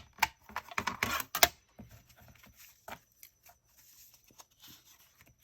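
Sharp taps and knocks of a small paper-scoring board and craft supplies being handled and set down on a work table. The knocks are loudest in the first second and a half, followed by faint light clicks and rustles.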